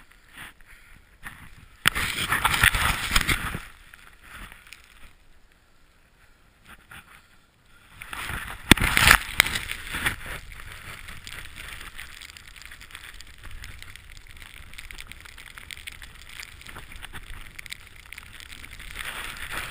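Snowboard riding through deep powder snow: a rushing hiss with wind buffeting the camera's microphone. It swells loudly about two seconds in, drops back, then builds again from about eight seconds in, peaks soon after, and runs on steadily.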